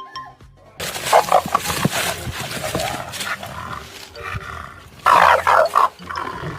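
A dog making loud, rough vocal sounds. They start about a second in and are loudest about five seconds in.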